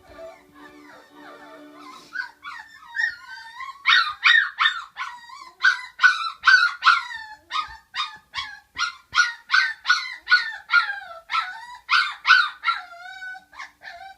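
Five-week-old standard schnauzer puppies yelping and crying in a rapid run of short, high cries, each dropping in pitch, about three a second, starting about two seconds in.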